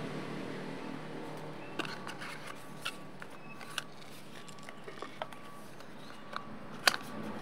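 Hands handling small plastic parts and packaging from a wireless microphone kit: scattered light clicks and scrapes, with one sharper click near the end.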